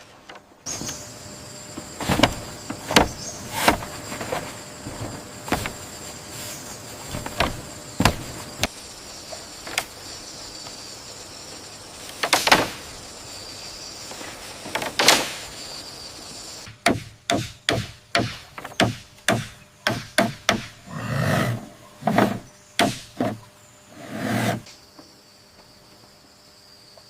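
Irregular sharp knocks and taps of bamboo poles being worked and struck, over a steady high-pitched whine. About two thirds of the way through the whine stops and quicker clusters of clatter and knocks follow.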